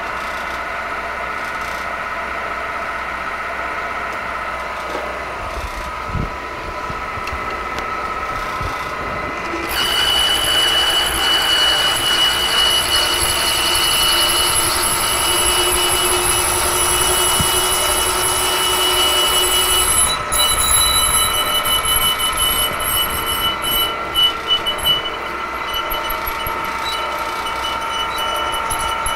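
Milling machine spindle turning a twist drill that is boring into a stainless steel hammer head. A high-pitched squeal from the cutting sets in about ten seconds in and carries on, with a short break around twenty seconds.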